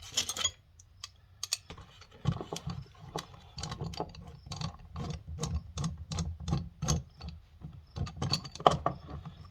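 Quick metallic clicks and clinks of hand tools and steel parts being worked on a tractor final drive, several a second, starting about two seconds in, with dull knocks of handling underneath.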